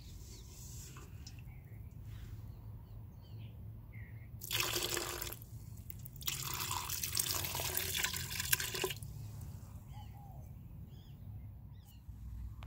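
Dye liquid poured from a glass into a stainless steel stockpot of dye, splashing in twice: a short pour about four and a half seconds in, then a longer one that stops at about nine seconds.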